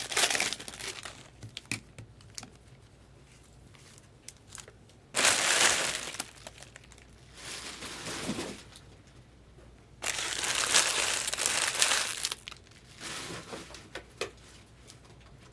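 Trading-card pack wrappers crinkling as they are handled and torn open, in several bursts of a second or two with short quiet gaps between them.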